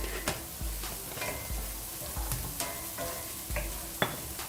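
Onions and spices sizzling in hot oil in a skillet while a spatula stirs them, with several sharp knocks of the spatula against the pan.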